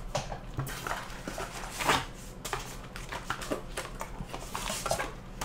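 Cardboard DVD box set being handled and folded closed: scattered scrapes, taps and rustles of the card flaps and cases, the loudest about two seconds in.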